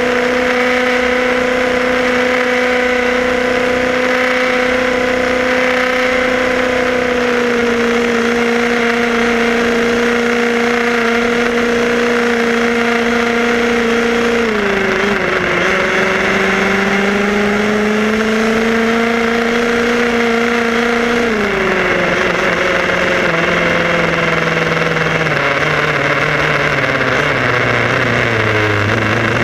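Whine of a Tamiya radio-controlled buggy's electric motor and gears, heard from the car itself, running at a steady speed over road noise. The pitch drops about halfway through, drops again about two-thirds through, and sinks lower toward the end as the car slows.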